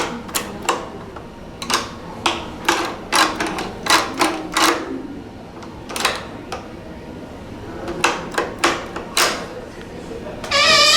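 Irregular run of sharp clicks and taps, then about ten seconds in a loud, wavering squeal from a creaking door.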